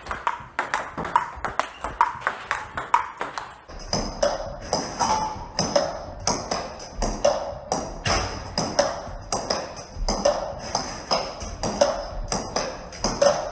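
Table tennis ball in a fast rally, alternately bouncing on the table and being struck by the racket: a steady run of sharp clicks, two to three a second.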